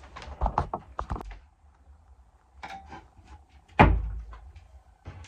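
A few sharp knocks and thumps, a cluster in the first second and a single loudest thump nearly four seconds in.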